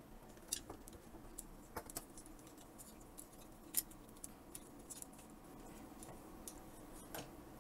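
Faint, scattered clicks and taps of hard plastic as a hand handles and turns a Transformers action figure fitted with snap-on add-on armour parts, the sharpest click about four seconds in.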